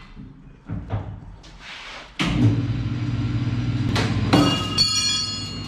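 A metal lathe's electric motor switches on about two seconds in and runs steadily with a low hum. Near the end a metal part is dropped, knocking and then ringing clearly.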